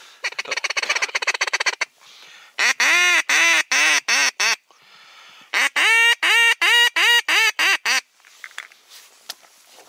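Hunter's duck call blown close by: a rapid clicking chatter for about two seconds, then a loud series of about eight quacks, a short pause, and a second series of about nine quacks, calling to ducks on the water.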